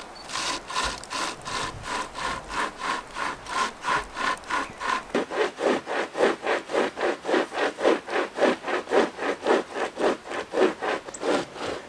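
Bushstar hand chainsaw, a toothed steel chain pulled back and forth by two people at its strap handles, cutting through a tree trunk in fast, even rasping strokes, about four a second. About five seconds in, the rasp drops lower in pitch.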